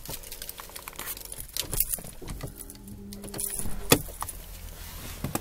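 Handling noise as a handheld phone is carried around inside an SUV: scattered clicks, knocks and rustling, with a sharp click right at the start and another about four seconds in. A faint steady hum sits under it for a second or so at a time.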